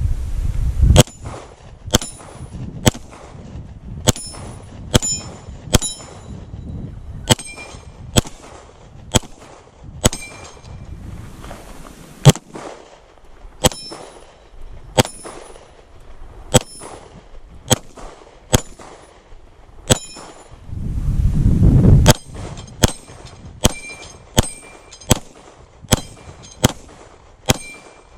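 A Zev OZ9 9mm pistol firing a long string of single shots, roughly one a second and sometimes quicker, many of them followed by the short ring of a steel plate being hit.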